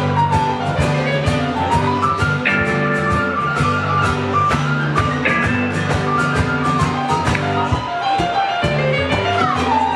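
Live blues band playing: electric guitar, keyboard and strummed acoustic guitar over a steady beat, with pitch glides in the lead line.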